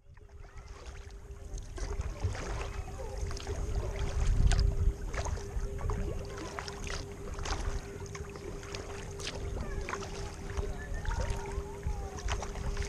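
Sea kayak being paddled on calm water: paddle strokes with dripping splashes and small clicks over a low rumble, fading in at the start.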